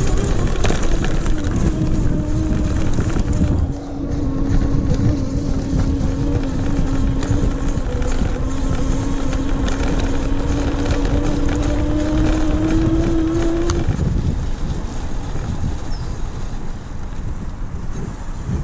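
Electric bike's rear hub motor whining under throttle, its pitch dipping slightly and then climbing with speed before cutting out about fourteen seconds in, over a steady low rumble of tyres on the path and wind.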